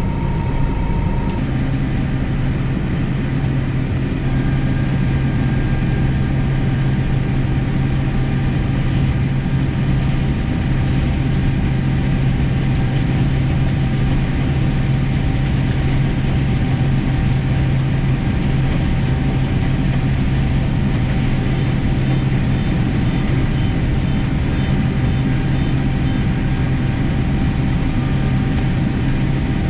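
Combine harvester running steadily with a constant low engine drone and a few steady higher machine tones, working in corn.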